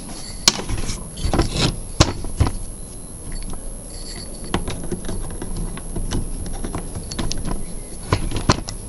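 Small metal engine parts being handled during dismantling: irregular light clicks and knocks, with a short scrape about one and a half seconds in.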